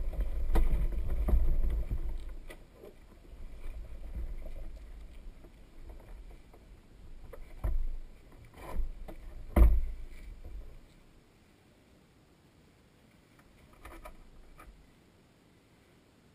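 Handling noise on the microphone of an action camera mounted on a parked motorcycle: a low rumble for the first two seconds, then a few dull thumps and knocks near the middle as the mount is moved.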